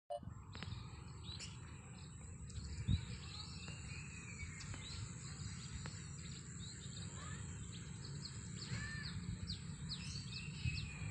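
Many small birds chirping with short, quick repeated calls, over a steady high insect buzz and a low rumble. A single thump about three seconds in.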